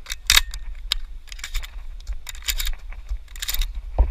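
Pump-action shotgun being handled and reloaded: an irregular run of sharp metallic clicks and clacks as shells and the action are worked, with one stronger clack about a third of a second in and a heavier thump near the end.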